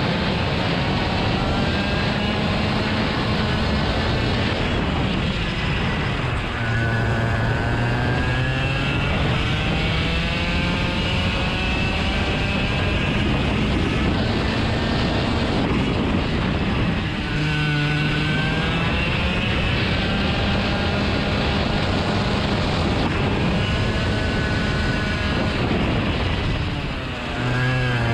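Motor vehicle engine running steadily under load, its pitch climbing slowly, with three sudden drops in pitch and a brief dip in loudness about 6.5, 17 and 27 seconds in, like gear changes.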